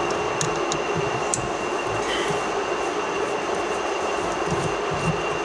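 Steady mechanical hum with a thin high whine, and a few light metallic clicks about half a second to one and a half seconds in, from small bolts on a steering-column clock spring being undone with a hand tool.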